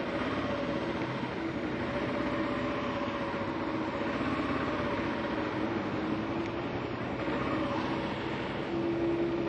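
Single-cylinder engine of a 2009 Kawasaki KLR650 dual-sport motorcycle running steadily at low road speed, with wind and road noise.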